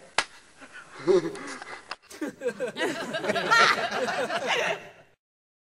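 Men laughing and giggling in short, wavering bursts after a single sharp click near the start; the laughter stops abruptly about five seconds in.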